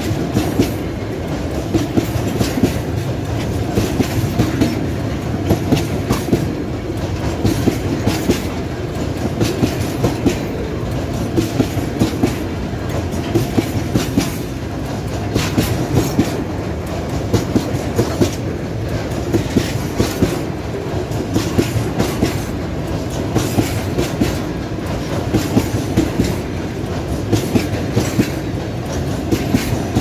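Empty railway tank cars rolling past at close range: a steady rumble of wheels on rail, broken again and again by the clickety-clack of wheelsets striking the rail joints.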